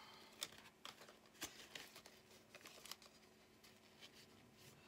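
Near silence with faint, scattered clicks and rustles of plastic envelopes and laminated tracker cards being handled in a budget binder.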